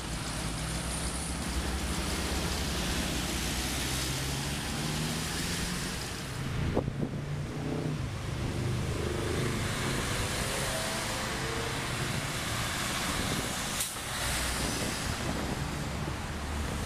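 Road traffic: a steady wash of car engine and tyre noise from passing vehicles, with a low hum throughout. The sound changes abruptly twice, at about seven and fourteen seconds in.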